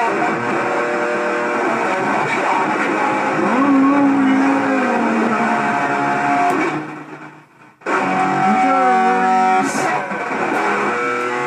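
Live guitar playing the instrumental close of a song, with held, ringing notes. The sound falls away briefly about seven seconds in, then the playing starts again.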